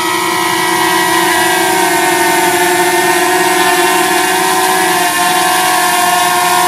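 DJI Mavic Mini drone's propellers whining in flight: a steady hum of several tones that shift slightly in pitch about a second in and again around five seconds in as the motors adjust speed.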